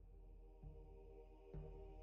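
Faint ambient background music with sustained, held tones.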